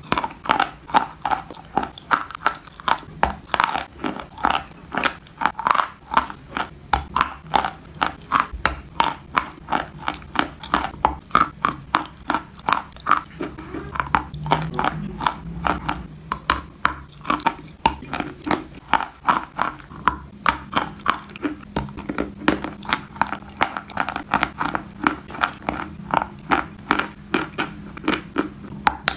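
Close-miked biting and chewing of a crumbly block of white chalk. It makes crisp, regular crunches, about three a second, as the chalk is bitten and ground between the teeth.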